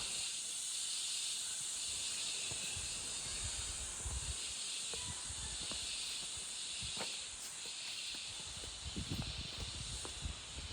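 Steady high-pitched outdoor hiss that swells and eases every couple of seconds, with low rumbles and a few soft knocks near the end.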